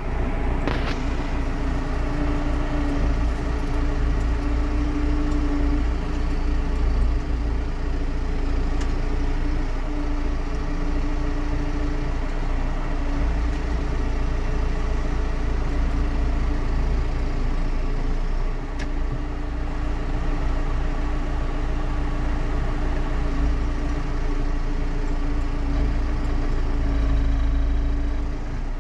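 Farm tractor engine running steadily, heard from inside the cab, with a low rumble and a steady hum.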